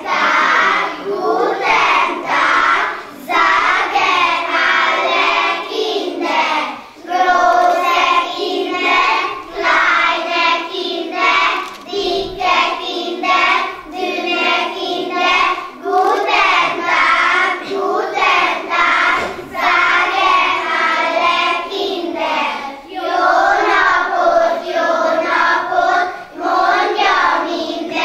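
Young children chanting a German rhyme together in unison, in a sing-song rhythm broken into short phrases.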